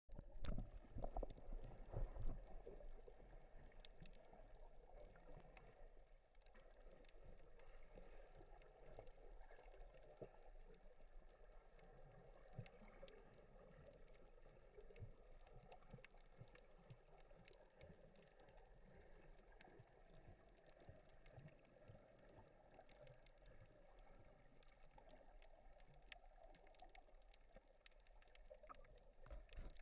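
Faint, muffled underwater ambience heard through a submerged camera: a steady soft wash with scattered small clicks, and a few louder knocks in the first couple of seconds.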